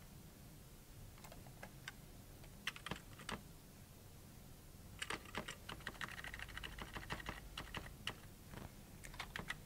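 Typing on a computer keyboard: a few scattered keystrokes at first, then a quicker run of keystrokes from about halfway through.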